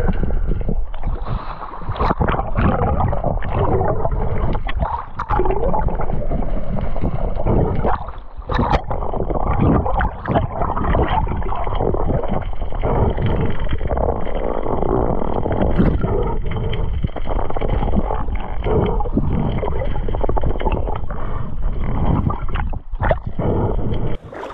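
Muffled underwater rushing and gurgling of water moving past a camera in its waterproof housing as a spearfisher swims with a speared Spanish mackerel, with scattered knocks and clicks.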